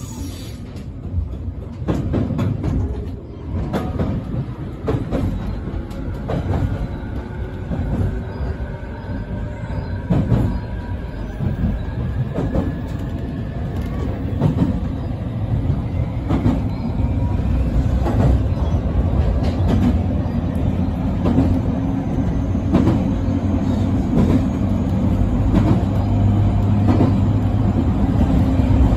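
Electric train running along the track, heard from the driver's cab: a steady low rumble with wheels clicking over rail joints. A faint motor whine rises slowly in pitch through the first half, and the whole sound grows gradually louder.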